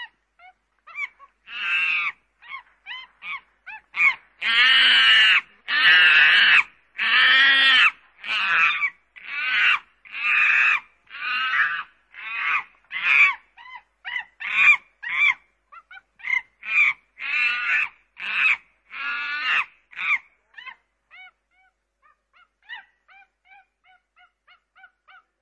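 A monkey or ape calling over and over in short, high, rising-and-falling calls. About four seconds in the calls become loud and drawn out, then shorten again, and after about twenty seconds they turn faint and brief.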